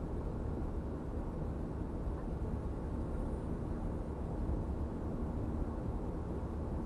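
Steady low rumble of a car driving at road speed: engine and tyre noise heard from inside the cabin.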